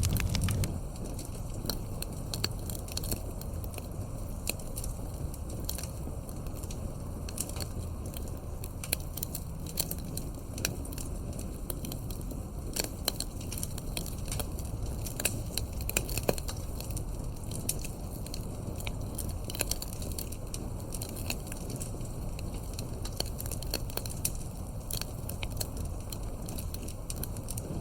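Wood fire crackling in a fireplace: many irregular sharp pops and snaps over a steady low rumble of burning logs.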